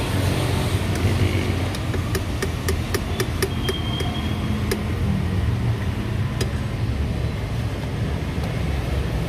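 A metal slotted ladle clicks and taps against a plastic cup and a pot while tapioca boba pearls are scooped out, a quick run of light clicks about two to five seconds in. Under it runs a steady low rumble of street traffic.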